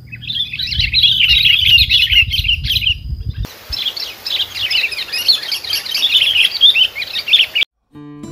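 Sooty-headed bulbuls chattering: a dense run of quick, high chirps, over a low rumble for the first three seconds or so. The chirping cuts off abruptly shortly before the end.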